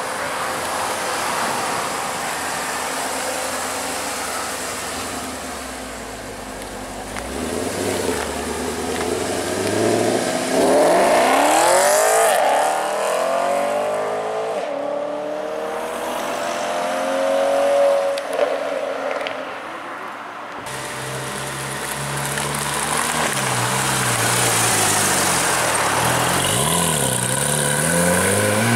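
High-performance car engines accelerating hard and driving past, their pitch climbing steeply and then falling away. One car is loudest about halfway through. The sound switches abruptly to another car revving up and down a little after twenty seconds in.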